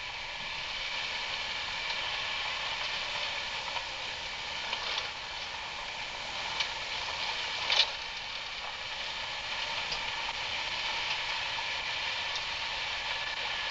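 Steady noise of a vehicle travelling down a rough dirt trail, with a few short clicks and knocks, the loudest about eight seconds in.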